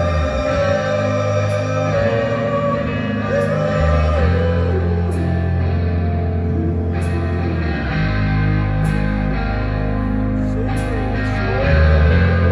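Live rock band playing: electric guitars over sustained bass notes, with sung vocal lines and cymbal crashes about every two seconds.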